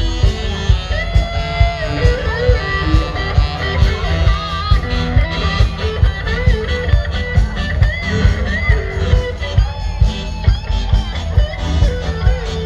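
Amplified dance music playing over loudspeakers: a steady beat with strong bass under a guitar melody that bends in pitch.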